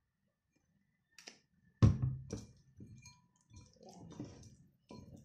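Hands rubbing seasoning into raw chicken drumsticks in a bowl: wet squishing and small clicks, starting about a second in, with one loud thump just before two seconds in.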